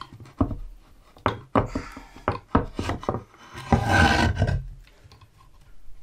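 A wooden board knocking against a timber workbench a dozen or so times as it is handled, then scraping across the bench for about a second as it is slid and tipped up on edge.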